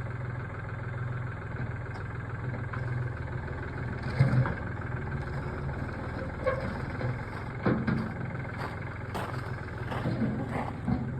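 An engine idling steadily. From about four seconds in, scattered knocks and clunks sound over it.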